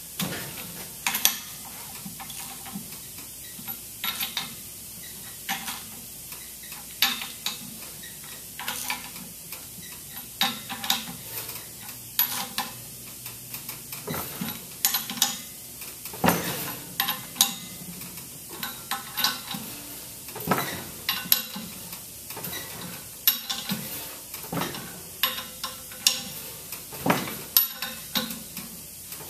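Irregular metallic clicks and clinks, sometimes several a second, as nuts are run onto the stainless steel tie rods of a chemical injection pump head.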